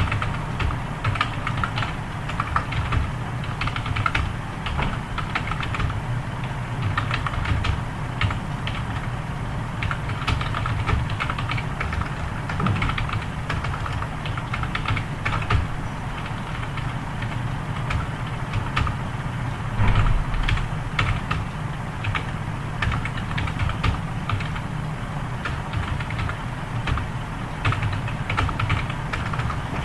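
Continuous fast typing on a computer keyboard, keys clicking several times a second, over a low steady hum.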